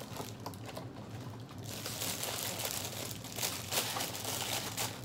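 Plastic wrapper of a honey bun crinkling as it is handled and pushed into its cardboard box, with a few light clicks at first and then dense, loud crinkling from about two seconds in.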